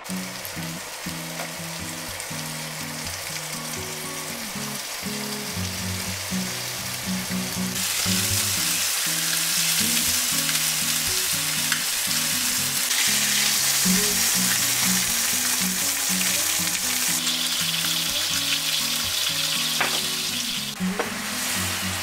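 Chicken sizzling in hot oil in a non-stick frying pan, a steady hiss that grows louder about eight seconds in. Soft background music plays underneath.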